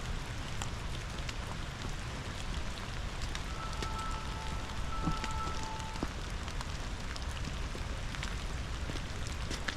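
Steady rain falling, with many single raindrops ticking close by over a continuous low rush. A faint steady tone with two pitches at once sounds for a couple of seconds in the middle.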